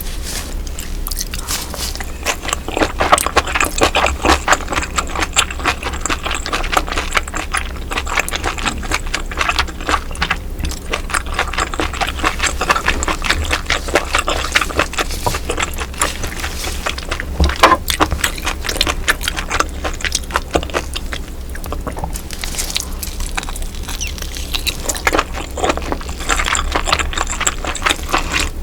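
Close-miked chewing of baby octopus in soup: a dense, continuous run of wet mouth clicks and smacks, louder in bursts about three to four seconds in and near the end.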